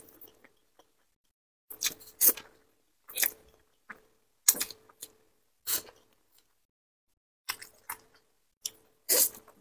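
Spicy fire-chicken instant noodles slurped into the mouth in short, sharp sucks, about a dozen in clusters of two or three, with a quiet pause of a second or so about two-thirds of the way through.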